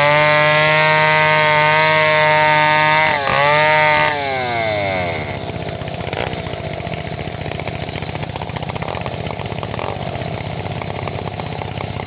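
Two-stroke chainsaw running at full throttle, ripping lengthwise through a sengon log, with a brief dip in revs about three seconds in. About four seconds in the throttle is released and the engine falls away to a steady idle.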